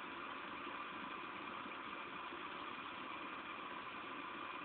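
Steady heavy rain falling, an even rushing noise with no thunder or sudden sounds.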